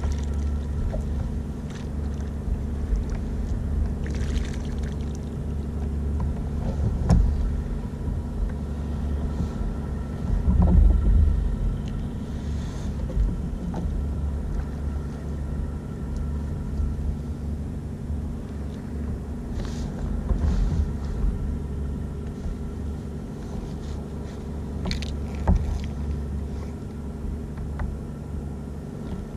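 Steady low rumble with a faint hum on board a plastic fishing kayak at sea, broken by a few sharp knocks and clicks as gear is handled. There is a louder low bump about ten to eleven seconds in.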